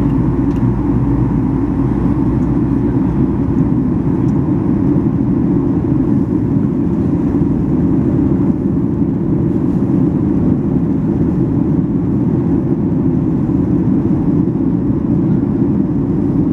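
Steady engine and airflow noise inside the cabin of a Ryanair Boeing 737-800 in the climb after take-off: a deep, even hum with a faint higher tone over it.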